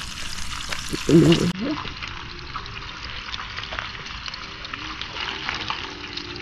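Strips of bacon sizzling in a frying pan: a steady crackle with many small pops.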